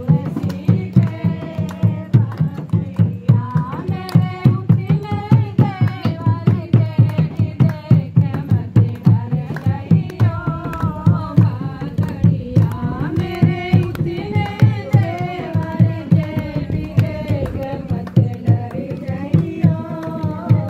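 A group of women singing a traditional wedding folk song (geet) together to a steady, quick dholak beat.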